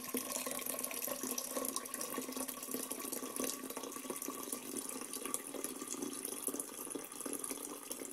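Brewed green tea pouring in a steady stream from a kettle spout into a large glass swing-top jar, splashing into the tea already in the jar.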